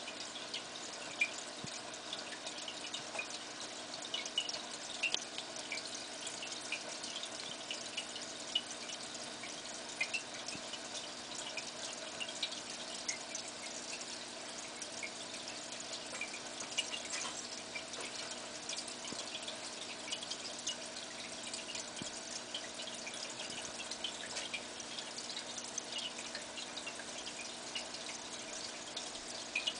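Aquarium water trickling and bubbling from a Whisper filter, with scattered small drips and pops over a steady low hum.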